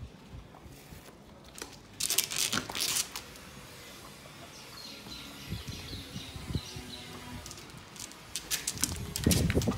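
A dog snuffling and eating a corn tortilla off a concrete floor, in short rough bursts, loudest near the end. Birds chirp faintly in the background.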